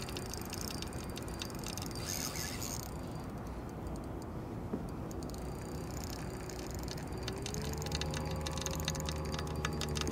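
Shimano Stella 2500 spinning reel being cranked on the retrieve, a fast fine ticking of its gearing and rotor, pausing for a few seconds in the middle and starting again. A low steady hum comes in about seven seconds in.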